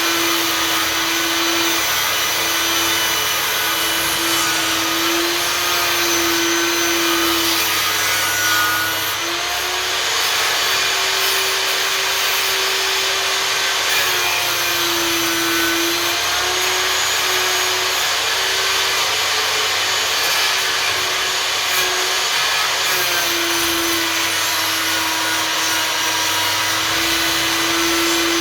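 Einhell table saw running continuously while sawing boards, a steady motor whine whose pitch dips slightly a few times and then recovers.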